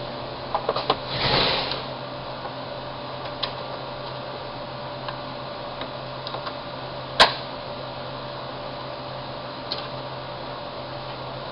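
Small clicks and knocks of die grinder parts and tools being handled, with a brief brushing rustle about a second in and one sharp clack about seven seconds in, over a steady low hum.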